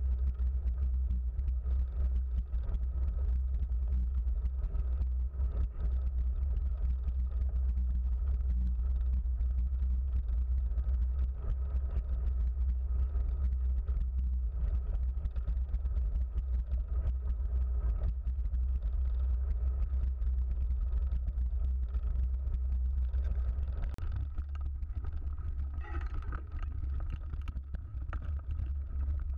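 Wind buffeting the microphone of a handlebar-mounted camera, over the rumble and rattle of a mountain bike's tyres on a gravel track. Near the end the low rumble eases and a few sharp clicks and rattles stand out as the bike moves onto a rougher forest trail.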